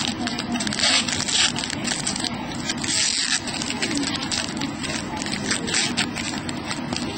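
Foil wrapper of a Panini Certified football card pack crinkling, with trading cards rustling and sliding against each other as they are pulled out and handled: an irregular run of crackles.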